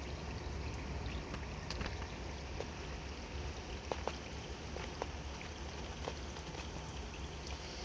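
Light rain falling: a steady hiss with a few scattered faint ticks.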